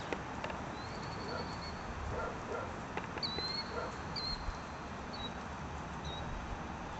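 Briard puppies whining and yipping in play: a handful of short, high-pitched whines and a few yips.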